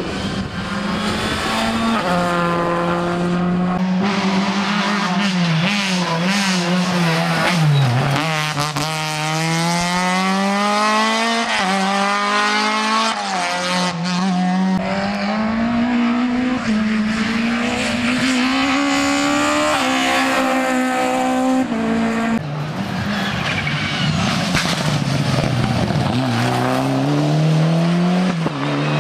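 Rally car engine run hard at full throttle, its pitch repeatedly climbing through the revs and dropping at each gear change and braking point.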